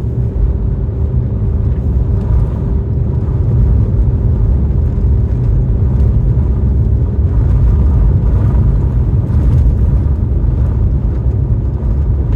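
A car driving, with a loud, steady low rumble of engine and road noise and a faint steady hum.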